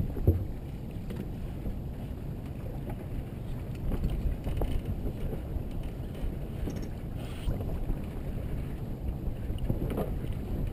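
Wind buffeting the microphone and water rushing along the hull of a Merit 25 sailboat under sail, a steady low rumble, with a brief knock right at the start.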